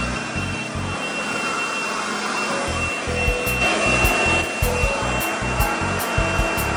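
Electric leaf blower running steadily: a loud rush of air with a constant high whine from the motor.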